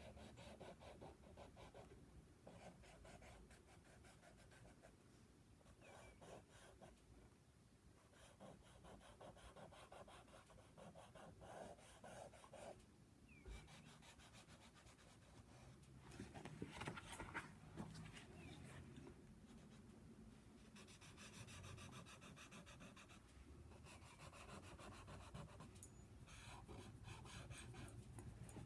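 Faint scratching of a soft pastel stick stroked across paper in many short strokes, darkening the colour, a little louder around the middle.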